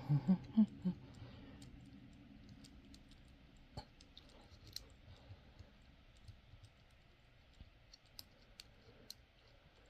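Lock picking tools working a padlock: faint, scattered small clicks and ticks of metal on metal, with a few soft knocks from handling the lock in the first second.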